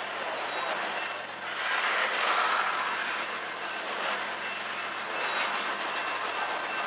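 Freight train cars rolling past on the track, a continuous noise of wheels and cars that grows louder about two seconds in.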